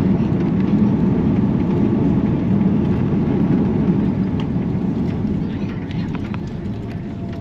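Cabin noise of an Airbus A330-243 rolling out on the runway just after touchdown: a loud, steady low rumble of engines and runway roll that slowly fades over the last few seconds as the airliner slows.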